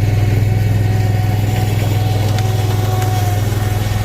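Gehl 3310 skid steer's engine running steadily.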